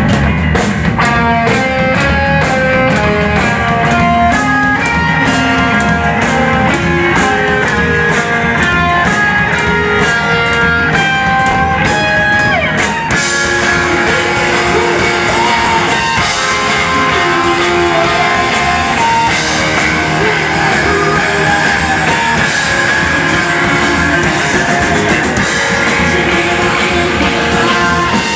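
Live rock band playing: electric guitars, electric bass and drum kit. For about the first thirteen seconds a picked guitar line steps through clear single notes over tight drum hits. Then cymbals wash in and the band plays a fuller, denser section.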